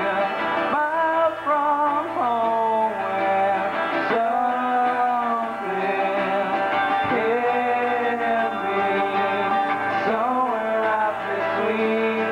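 A young male lead singer singing a sliding, drawn-out vocal line, with a live rock band of electric guitar and drums playing behind him.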